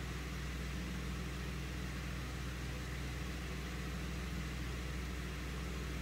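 Steady low hum with a faint hiss, unchanging throughout, with no distinct knocks or scrapes.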